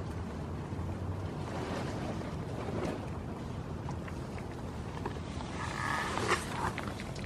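Steady wind rumble on the microphone, with scattered crunching and rustling as a goat noses and nibbles in straw bedding. A brief higher-pitched squeak sounds about six seconds in.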